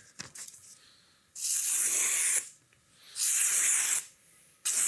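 A freshly sharpened high-carbon steel machete slicing through a sheet of Uline paper, a sharpness test. Three hissing slicing strokes about a second long each, the third starting right at the end.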